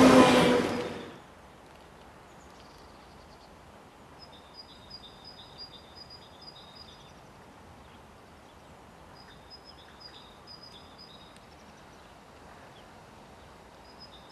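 A passenger train rushes past close by and cuts off abruptly about a second in. Then a small bird sings phrases of quick, repeated high chirps over a faint background, twice and again near the end.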